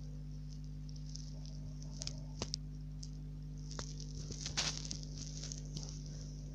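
Dog snoring faintly: one short, fluttering snoring breath about four and a half seconds in, with a few small clicks before it over a steady low electrical hum.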